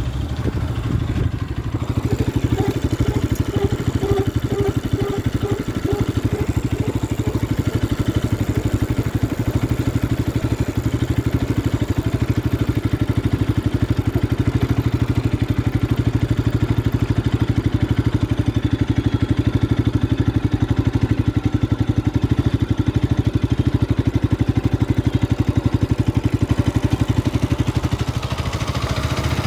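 Bajaj Pulsar RS 200 motorcycle's single-cylinder engine running steadily. From about two to seven seconds in, a squeaking tone pulses two to three times a second, the brake noise that the owner says is still not fixed after four months.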